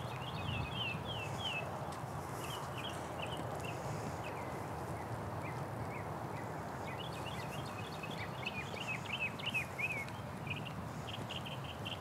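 Small birds chirping in quick runs of short, falling notes, busiest near the start and again from about seven seconds in, over a steady outdoor background noise.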